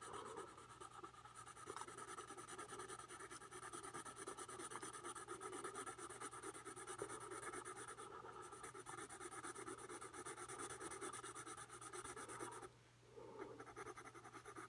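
Graphite pencil shading on paper: quick back-and-forth scratching strokes, pressed fairly hard to lay down a darker tone. The strokes pause briefly near the end, then resume.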